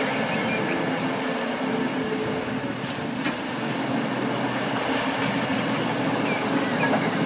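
Large diesel mining machinery running steadily: a hydraulic mining shovel working as it loads a haul truck, a dense even rumble with a faint steady hum.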